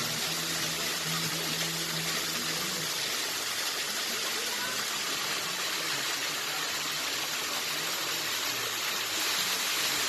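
Steady rushing of flowing spring water, an even noise with no breaks.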